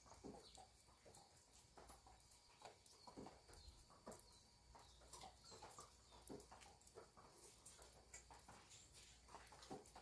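Faint farm morning ambience: scattered short, distant animal calls and chirps, irregular and never loud.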